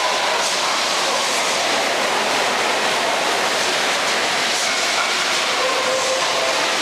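Steady, even background noise of a busy indoor exhibition hall, with faint distant voices now and then.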